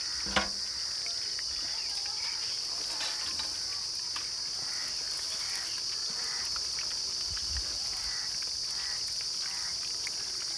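Chicken pieces deep-frying in a wok of hot oil: a steady high hiss with scattered pops and crackles, and a single sharp knock about half a second in.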